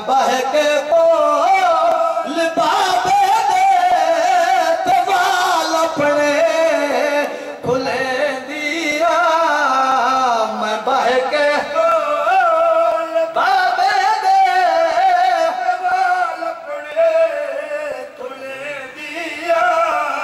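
A man's voice chanting a mournful lament (wain) in long, wavering sung phrases, unaccompanied, with brief pauses about 8 and 19 seconds in.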